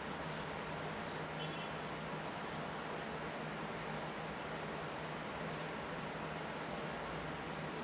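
Sparrows chirping faintly in short high notes, a few each second at irregular spacing, over a steady outdoor background hiss and a low steady hum.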